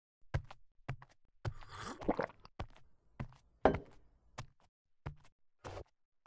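Footsteps on a hard floor at a steady walking pace, sharp separate knocks a little under two a second, one louder than the rest just before four seconds in. A brief rustling scrape comes about a second and a half in.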